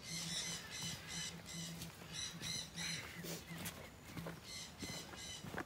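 An animal calling over and over, about three short calls a second. The calls pause for about a second past the middle, then resume.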